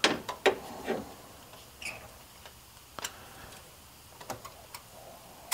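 Light clicks and taps from a spark plug socket and extension being turned by hand to unscrew a loosened spark plug: a quick cluster in the first second, then a few single ticks.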